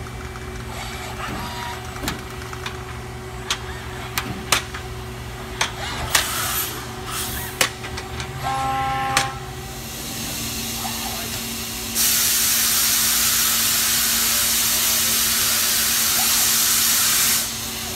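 Steady hum of a robotic machining cell, with scattered sharp clicks and knocks and a brief pitched tone. About twelve seconds in, a loud steady hiss starts, lasts about five seconds and then cuts off.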